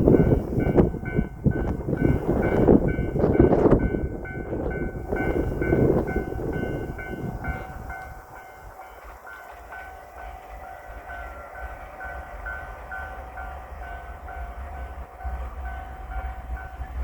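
JR Shikoku 8000 series limited express electric train passing over a level crossing, loud with rapid wheel clacks for the first seven seconds or so, then dying away. Through it all the crossing's warning bell keeps ringing in a steady, even beat.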